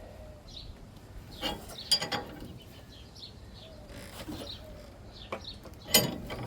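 Wrench cranking the forcing screw of a ball joint press down on a truck's lower ball joint under heavy pressure: irregular metallic clicks and creaks, the sharpest click about six seconds in.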